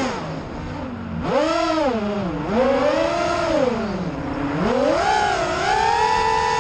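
FPV quadcopter's electric motors and propellers whining, the pitch swooping up and down with the throttle: it drops at first, surges twice, then holds high near the end.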